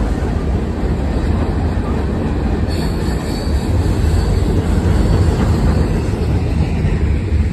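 Freight train cars rolling across a steel girder bridge overhead: a loud, steady rumble of wheels on rail. A faint high squeal from the wheels joins about three seconds in.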